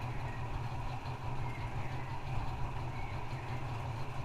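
Steady low hum with a faint hiss, unchanging throughout.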